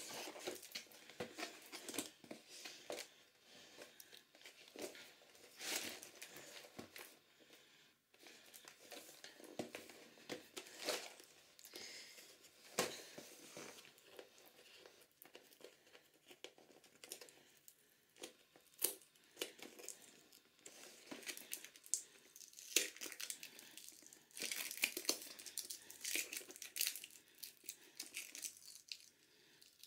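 Plastic shrink-wrap being torn and crinkled off a cardboard toy box: irregular crackles and rustles, with a denser run of crinkling near the end.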